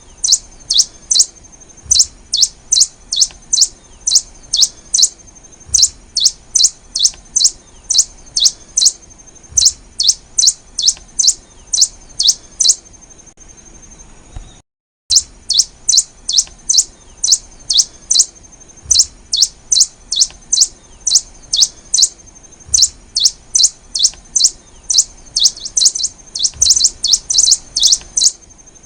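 Black-and-rufous warbling finch (Poospiza nigrorufa) singing: a long run of short, high chirps repeated several times a second, with a brief total dropout about halfway through.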